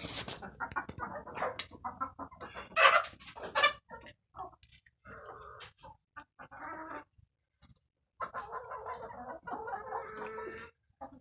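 Chickens clucking: a run of short calls, then longer drawn-out calls with pauses between them.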